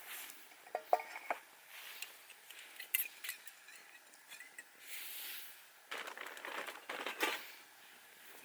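Metal camp cookware and utensils being handled: a few light clinks with a short ring about a second in, scattered clicks, then a longer stretch of scraping and rustling near the end.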